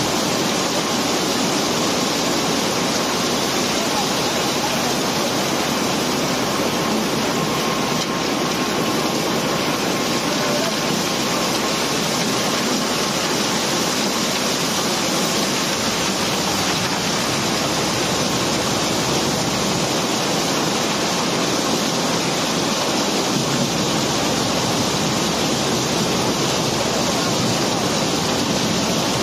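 Barge unloading cobblestone: a steady, unbroken rush of stones running down out of the hold onto the conveyor, together with the unloading machinery running. The noise is dense and even, with no separate knocks standing out.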